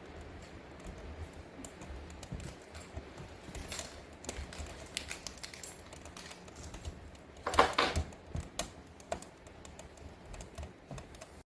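A run of light, irregular clicks and taps, with a louder clatter of knocks about two-thirds of the way through.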